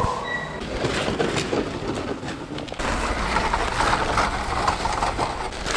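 Scattered knocks and rustling of people moving about. From about three seconds in, a steady low rumble with a crackly haze over it, like wind buffeting the microphone outdoors in snow.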